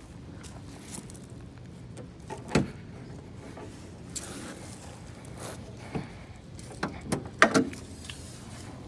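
Car hood being unlatched and opened: a few sharp clunks and knocks, the loudest a quick double knock near the end, over a low steady hum.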